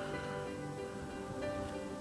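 Background music with held, steady notes.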